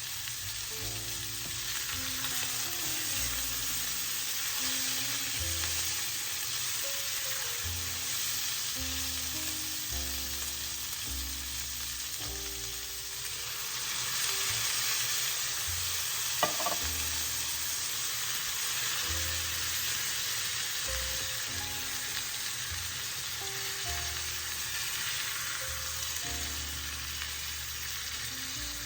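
Chicken pieces and onions sizzling steadily as they fry in a pan, with one sharp clink about sixteen seconds in.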